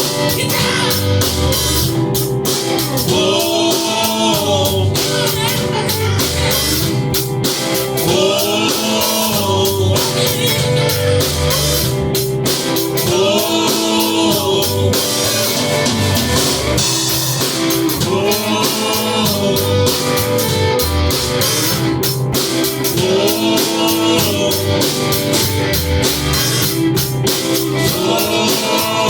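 Rock band playing an instrumental passage of an original song, with a drum kit keeping a steady beat under guitar.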